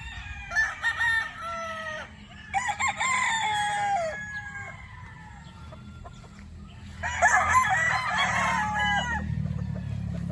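Young gamecocks (stags) crowing: three long crows, each falling away at its end, over a steady low hum.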